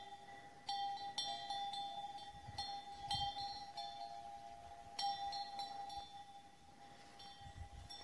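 Bell on a grazing cow's collar clanking irregularly, with sharp ringing strikes every second or two and the bell's tone hanging on between them.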